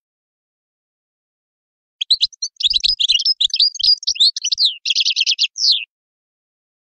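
European goldfinch singing: one rapid twittering phrase of quick chirps and short trills, starting about two seconds in, lasting about four seconds and ending in a fast trill.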